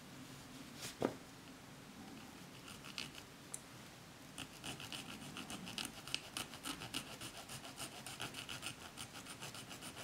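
A small metal file scraping a 3D-printed plastic model part in quick strokes, about four or five a second. It is smoothing the fresh print's surface. A single sharp knock comes about a second in, before the steady filing starts.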